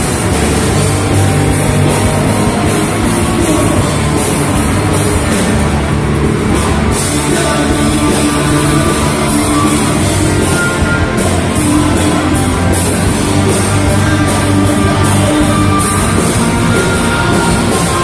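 A live rock band, with electric guitar and drum kit, playing loud heavy music without a break.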